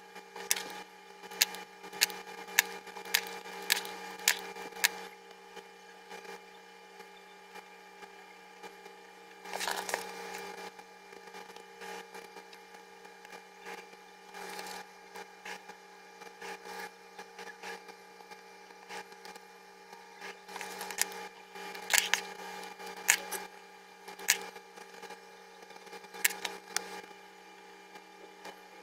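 Sharp clicks and taps from a drawing pen and plastic ruler on a notebook page, over a steady hum. The clicks come in a quick run in the first five seconds and another about two-thirds of the way through, with a short rustle near 10 s.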